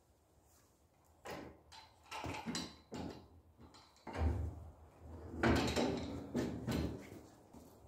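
Table saw on a wheeled steel mobile base being rolled across a concrete floor: the casters rumble and the base and saw rattle in several pushes, loudest near the end.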